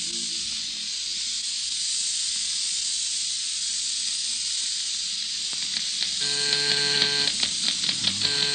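A steady hiss runs under everything. About six seconds in, a doorbell buzzer sounds twice, each buzz about a second long: the radio-drama sound effect of someone at the door.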